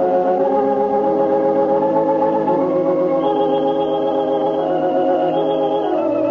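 Organ music: slow held chords, moving to a new chord about every two to three seconds.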